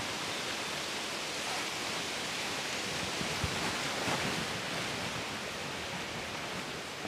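Steady hiss of outdoor background noise, with a couple of faint taps a little past the middle.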